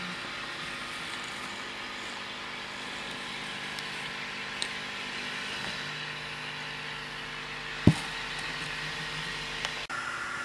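Steady hiss with a faint low hum, broken by one sharp knock about eight seconds in and a couple of small clicks.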